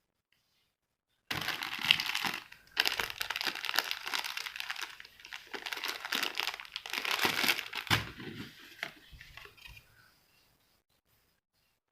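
Packaging being crumpled and torn open by hand: dense, irregular crinkling with sharp crackles that starts about a second in, then thins out and stops near the end.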